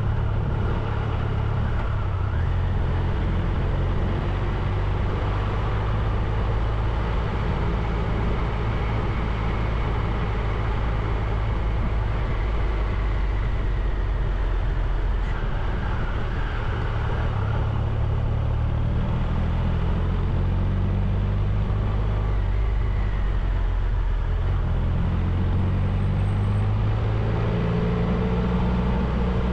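Triumph Tiger 1200's three-cylinder engine running at town speed under a steady wash of wind and road noise, its pitch rising near the end as the bike accelerates.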